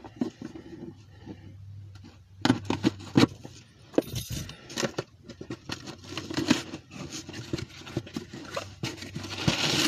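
A parcel's packaging being handled and pulled open by hand: irregular rustling, scraping and crinkling with scattered sharp clicks, busier from about two and a half seconds in.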